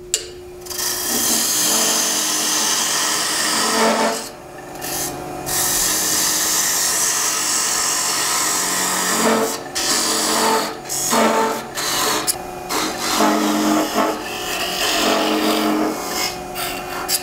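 Thin parting tool cutting into a spinning wooden spindle on a lathe, widening the kerf of a part-off cut: a scraping hiss that stops and starts several times as the tool is pushed in and eased back, over a steady hum.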